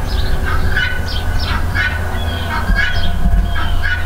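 Domestic fowl calling over and over in short calls, about two or three a second, over a steady low rumble.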